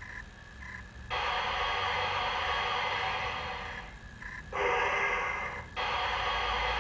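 Long bursts of steam-like hissing from a standing LGB model locomotive's sound unit. The first burst starts about a second in, and each one switches on and off abruptly.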